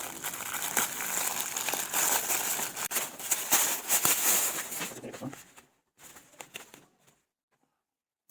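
Sealed parcel packaging being crinkled and torn open by hand: a dense run of rustling with many small snaps. It stops after about five seconds, leaving only a few faint rustles.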